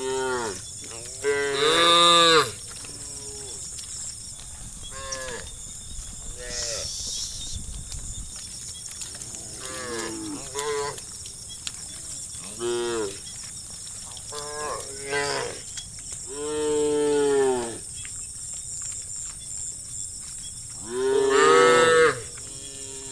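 Cattle mooing, several animals calling in turn. There are three loud, long moos (about two seconds in, past the middle and near the end) and shorter, fainter moos between them.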